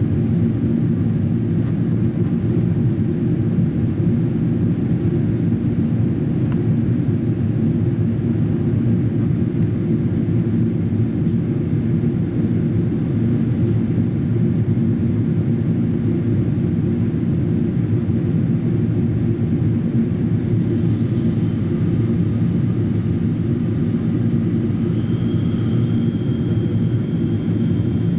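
Steady roar of engines and airflow heard inside the cabin of a Boeing 777-200ER during its descent on approach, deep and even throughout. A faint thin high whine comes in about twenty seconds in.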